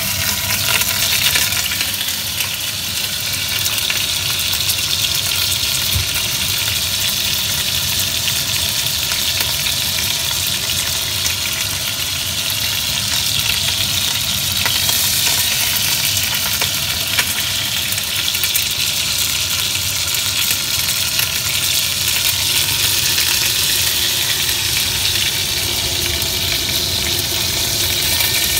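Hot oil sizzling and crackling steadily as a whole boiled lobster is lightly fried in a pot, with a faint steady hum underneath.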